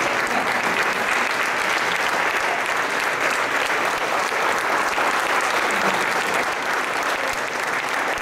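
Audience applauding: many people clapping together in a steady, even stream of claps.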